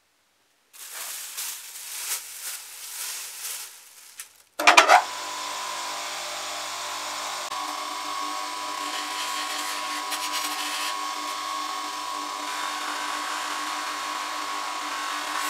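A plastic bag rustles as it is pulled off a bench polishing machine. About four and a half seconds in, the machine's motor is switched on with a sudden loud start and then runs steadily with its cloth buffing wheel spinning. In the later seconds a resin piece is held against the wheel for polishing.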